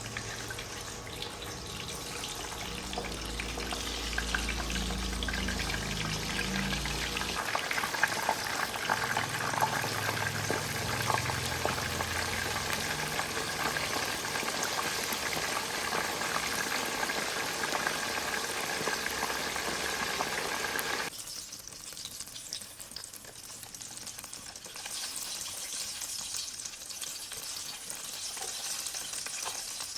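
Food sizzling and crackling as it fries in a pan. The sizzle drops off sharply about two-thirds of the way through, then picks up a little again.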